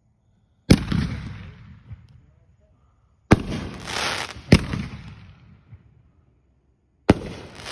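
Aerial fireworks bursting in the sky: four sharp bangs, the second and third about a second apart, each trailing off over a second or so.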